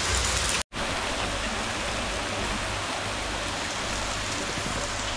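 Steady sizzling of pork cooking on a moo kata grill-hotpot. All sound cuts out for a split second a little over half a second in.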